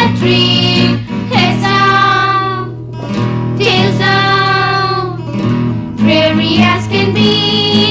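Children singing a children's song in English with instrumental accompaniment, in phrases with long held notes.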